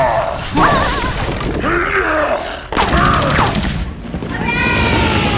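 Cartoon fight sound effects: a monster roaring, with high wavering cries and shrieks, over a steady low rumble. A loud crash comes about three seconds in.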